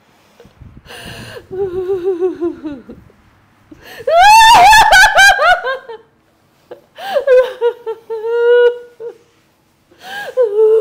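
A woman's voice laughing and wailing in several drawn-out, wavering bouts. The loudest is a burst of high, shaky laughter about four seconds in. The healer treats her fits as spirit possession.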